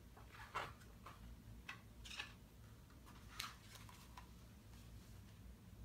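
Faint paper rustles and flicks as the pages of a printed booklet are turned by hand: about half a dozen short, irregularly spaced brushes of paper.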